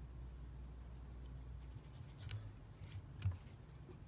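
Faint handling sounds of thread being wrapped around a jig hook's shank with a bobbin holder: a low hum that drops away about halfway, then a few light ticks.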